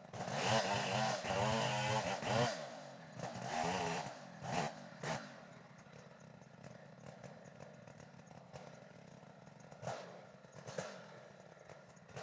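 Stihl two-stroke chainsaw running, revved a few times in the first seconds and then idling steadily.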